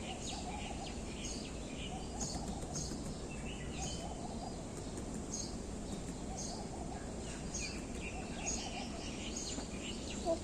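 Bird chirping: short, high chirps repeated about once or twice a second over a steady background hiss.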